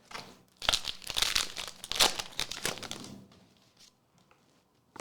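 Foil booster pack wrapper crinkling and tearing open for about two and a half seconds, then dying down to a few faint clicks.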